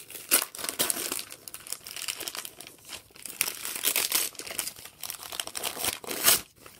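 Gift wrapping paper being crumpled and torn by hand, a run of irregular crinkling rustles with a sharper crackle just after the start and another near the end.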